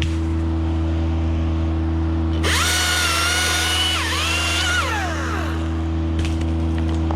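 Battery chainsaw, the Husqvarna T540iXP, triggered for a short cut: its electric motor whine jumps up about two and a half seconds in, holds, dips briefly, holds again and winds down about three seconds later. A steady low engine hum runs underneath.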